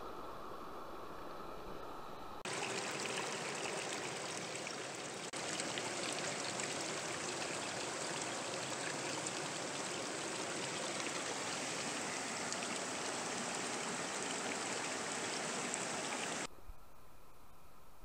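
Fast river water rushing over rocks, a steady even rush. It is duller and quieter for the first couple of seconds, then switches abruptly to a much louder, brighter rush, which drops back abruptly shortly before the end.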